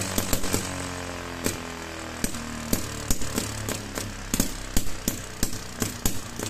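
Small homemade two-stroke engine of about 12 cm³ running. Its firing pops slow from a rapid rattle to about three a second, with a falling whine in the first two seconds as it winds down, over a steady low hum.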